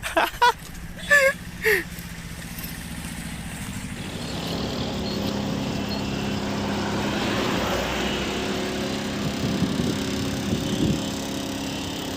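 A motor vehicle's engine running close by at a steady pitch, growing louder about four seconds in. A few short loud voice sounds come first, near the start.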